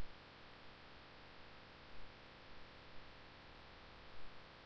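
Faint steady hiss and hum of the recording's background: room tone, with a few brief faint bumps.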